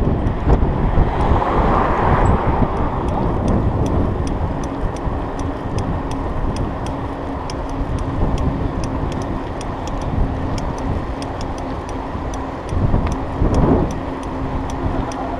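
Wind rumbling over the microphone of a riding mountain bike as it rolls along asphalt, with a steady light ticking from the bike about two to three times a second.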